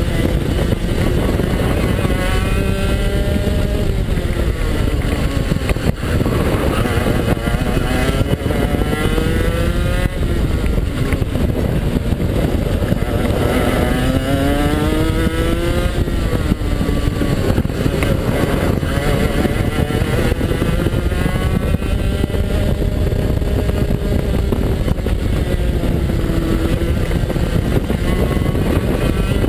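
A 125cc two-stroke TAG kart engine under racing load. Its pitch climbs steeply as it accelerates out of corners and drops as the driver lifts for the next one, several times over.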